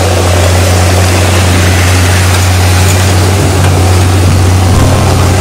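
Snow-grooming vehicle's diesel engine running steadily as it drives, loud and close as heard from on board, with a deep constant hum; the engine note shifts slightly near the end.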